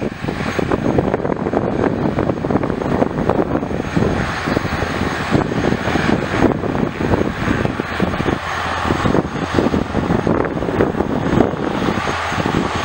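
Eurocopter AS350B3 helicopter hovering low, its single Arriel turboshaft engine and three-blade main rotor running at flight power. A steady low hum sits under a loud, uneven rush of rotor noise.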